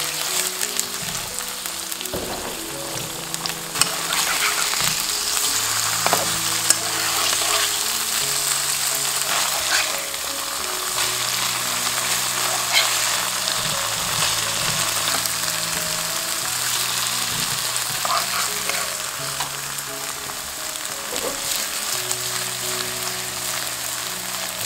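Tofu slices sizzling steadily as they pan-fry in oil in a nonstick pan, with scattered clicks and scrapes of a metal spatula turning them.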